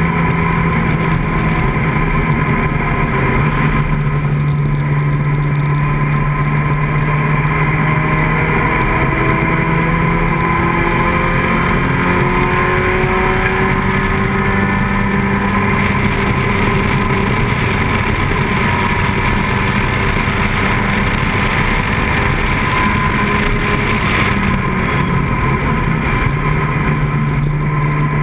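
Open-cockpit vintage race car's engine running hard through a track lap. Its pitch steps up and down several times with throttle and gear changes.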